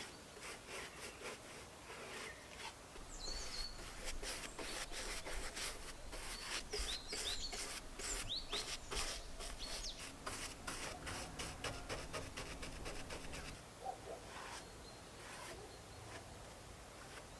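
A paintbrush scrubbing varnish onto wooden boards in quick, short strokes, which thin out in the last few seconds. A few small birds chirp in the first half.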